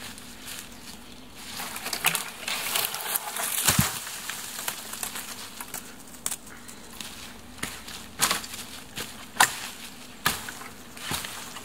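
A small dead conifer comes down: dry branches crackle for a couple of seconds, ending in a heavy thud as the trunk hits the forest floor. After that come single sharp cracks, about one a second, as dry branches are struck and snapped off the fallen trunk.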